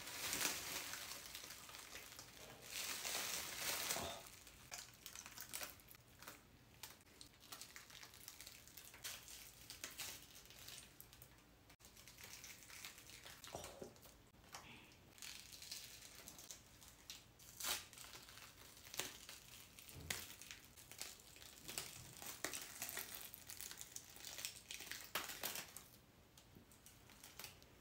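Special-effects makeup and plastic wrap being peeled and pulled off skin: irregular crinkling and soft tearing with scattered small crackles, and a longer rustle about three seconds in.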